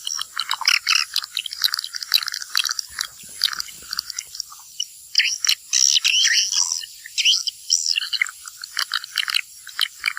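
Swiftlets twittering: a dense, unbroken run of short, high chirps as the birds fly in and out of their house.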